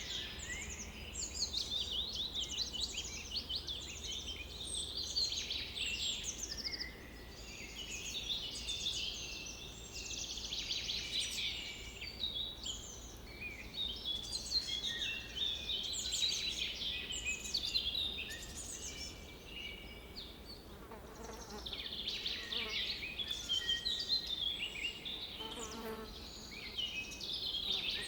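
Many birds singing at once, overlapping rapid chirps and trills that come and go in waves, over a steady low background rumble.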